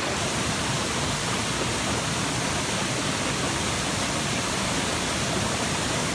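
Steady, unbroken rush of a tall waterfall plunging into a plunge pool, running in heavy flow after a night of heavy rain.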